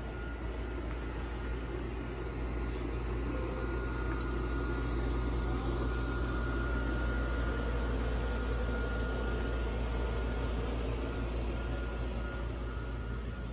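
Steady low background rumble with a faint high-pitched whine held throughout, and no distinct events.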